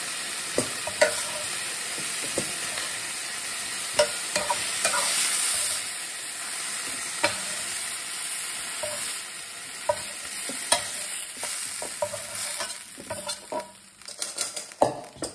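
Chicken pieces sizzling in hot oil in a stainless steel skillet, with sharp clicks and scrapes of a metal spoon against the pan as they are scooped out. Near the end the sizzle dies down as the pan empties, leaving a quick run of spoon clinks.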